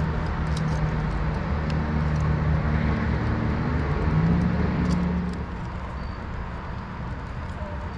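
A boat motor hums steadily, its pitch rising slightly around four seconds in, then falls to a quieter hum a little after five seconds.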